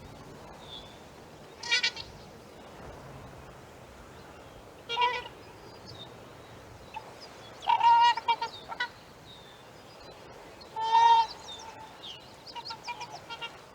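Trumpeter swans calling: single honks about two and five seconds in, a quick run of honks around eight seconds, a longer, louder honk at eleven seconds, then a cluster of softer, quicker calls near the end, over a steady low background noise.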